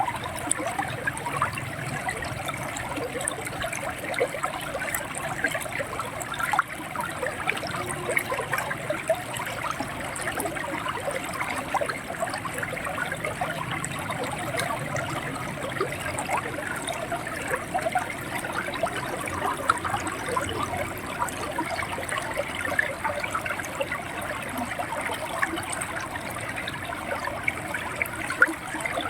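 River water flowing over rocks, a steady babbling and gurgling with many small splashes.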